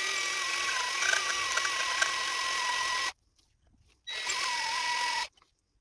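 Electric drill running in two bursts, about three seconds and then just over a second, with a steady whine that wavers slightly.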